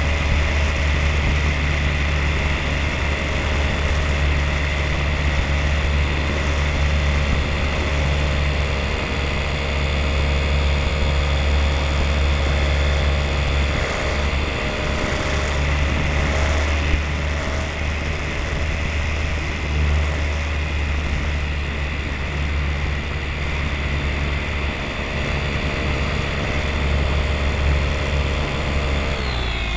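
Radio-control model airplane's motor and propeller running at a steady high pitch in flight, heard from on board with heavy wind rumble on the microphone. The pitch falls sharply right at the end.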